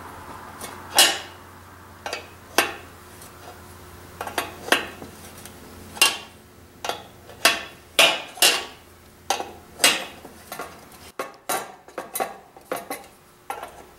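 Sharp metallic clinks of a small steel wrench against the valve fitting and fuel tank of a Coleman three-burner camp stove as a nut is worked on, coming irregularly, about one or two a second.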